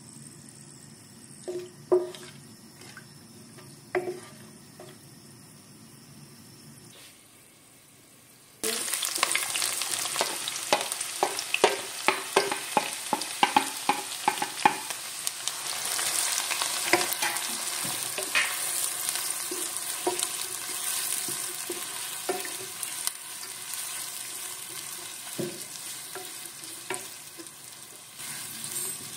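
A few spoon knocks against a pan over a quiet background. About nine seconds in, a loud sizzle of roughly chopped onions frying in hot oil with whole spices starts abruptly, with rapid clicking and scraping of a spatula stirring the pan, easing off toward the end.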